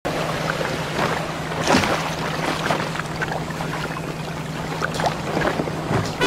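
Sea water rushing and splashing past a sailing yacht's hull, with wind noise and a steady low hum underneath.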